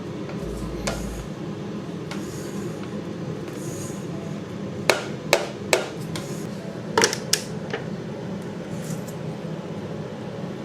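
Sharp metallic taps and clinks on a metal paint can, in two groups of about three, the first group about five seconds in and the second about two seconds later, over a steady low hum.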